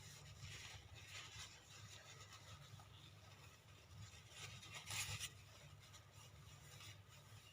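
Near silence: faint room tone, with a brief faint sound about five seconds in.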